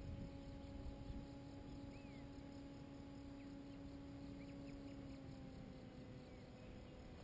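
Distant paramotor engine droning faintly overhead as a steady hum, its pitch sagging slightly near the end before it drops out. A few faint bird chirps and a short gust of wind on the microphone at the start.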